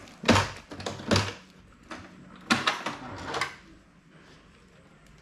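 Hard plastic clunks and clicks from an HP LaserJet Pro MFP M428dw laser printer as its scanner unit is lifted and its front door opened to reach the toner cartridge: about four knocks in the first three and a half seconds, then quiet.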